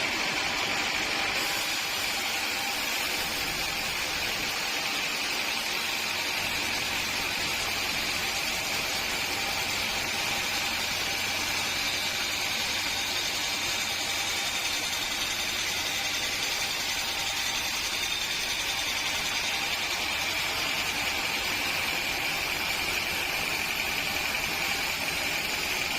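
Sawmill machinery running steadily: an even mechanical noise with a constant high-pitched whine that does not change.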